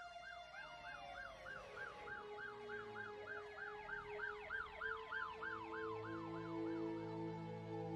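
Emergency vehicle sirens: a fast yelp repeating about three times a second, tapering off near the end, over slower rising and falling wails. Sustained music notes swell in under them in the second half.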